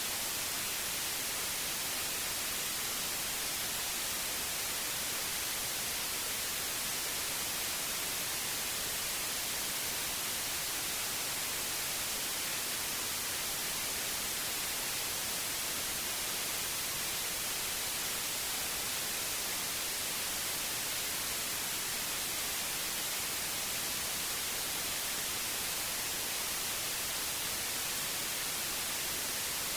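Steady electronically generated white noise: an even hiss, brightest in the treble, that does not change.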